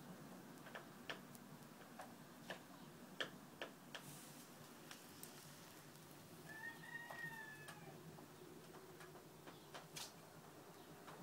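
Near silence with faint scattered clicks, and just past the middle one soft, drawn-out call, rising then falling, from a dozing ex-commercial laying hen.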